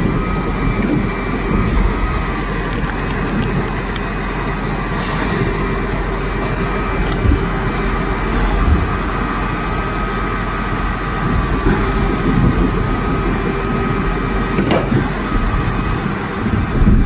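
Truck-mounted concrete pump running under load while pumping concrete through its boom: a steady heavy engine and machinery noise with a constant whine in it and an occasional sharp knock.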